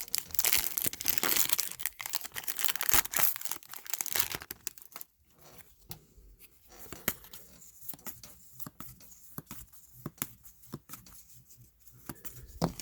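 A trading-card pack wrapper being torn open and crinkled for about the first four seconds, then quieter, scattered clicks and rustles of the cards being handled, with one sharper knock near the end.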